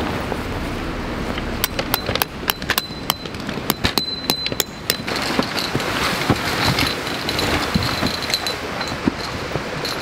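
A run of sharp clicks and light metallic clinks from camping gear being handled while a canvas tent is pitched, thickest between about two and five seconds in, over a steady rushing noise.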